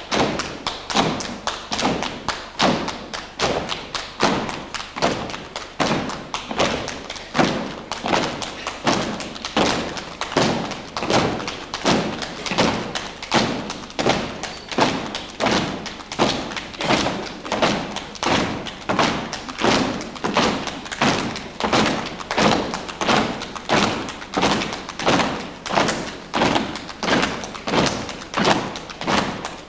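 Body percussion by a group of performers: hand slaps and thuds struck in unison, a steady, even beat.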